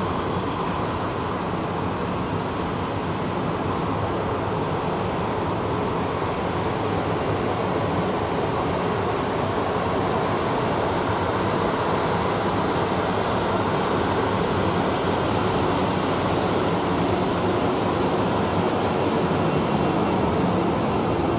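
Boeing 787-8 jet engines spooled up for takeoff: a steady rushing roar that slowly grows louder.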